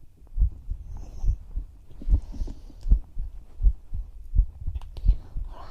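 A person's heartbeat heard close up, steady at about 80 beats a minute, each beat a low double thump.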